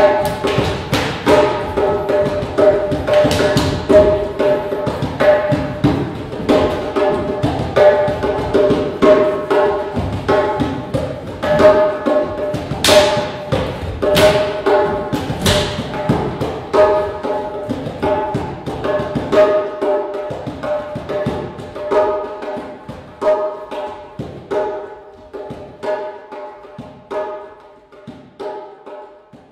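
Djembe hand drumming: a fast, steady run of ringing strokes that grows gradually softer over the last ten seconds and dies away at the end.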